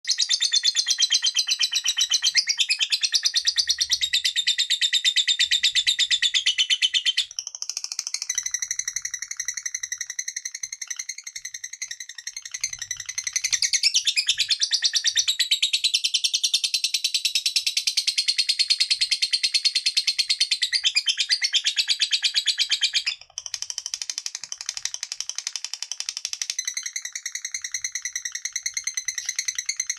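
Lovebird singing 'ngekek': a long, fast run of high-pitched chattering notes packed tightly together, broken only by short pauses about seven seconds in and again a little after twenty-three seconds.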